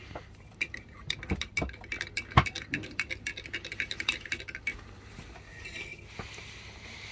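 A metal teaspoon stirring a drink in a ceramic mug, clinking quickly and repeatedly against the sides, with one louder clink about halfway through; the stirring stops about five seconds in.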